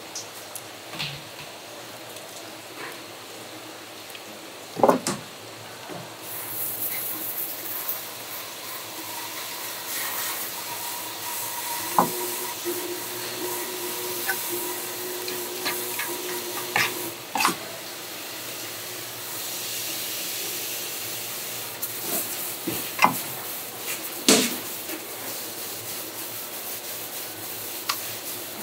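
Steady hiss of running water, louder from about six seconds in, with several sharp knocks and clatters of kitchen work.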